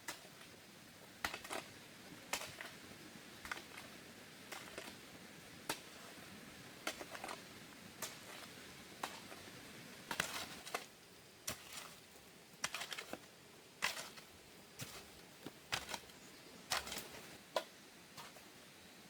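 Irregular light clicks and taps, roughly one a second, some coming in quick clusters, over a low background hush.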